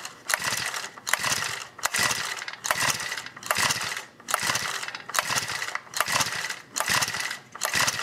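Recoil starter cord on a Honda GX31 four-stroke engine pulled hard again and again, about ten pulls a little under a second apart, each a rasping whir as the engine cranks over without firing. This is a cranking compression test with the spark plug out, a compression gauge in its place and the throttle closed.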